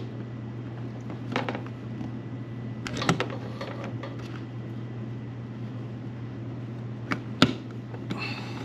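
A steady low electrical hum with a few scattered sharp clicks and knocks from a wall outlet being handled and found to be loose; the sharpest click comes near the end.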